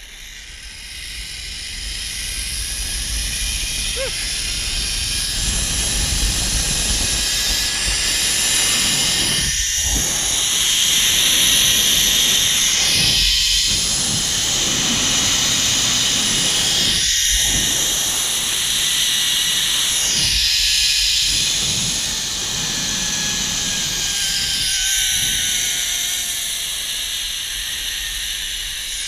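Zipline trolley pulleys running along the steel cable: a loud, high hiss and whir with wind rumbling on the microphone. It builds over the first several seconds as the rider picks up speed, and near the end a faint whine drops in pitch as the trolley slows towards the landing.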